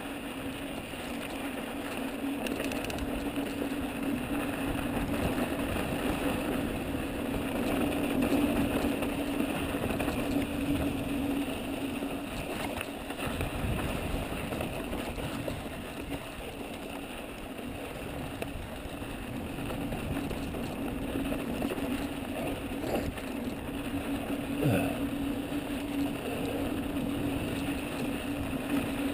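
Mountain bike rolling fast down a loose, dusty dirt and rock trail: tyres on dirt and the bike rattling, with a steady low hum throughout and a sharper knock near the end.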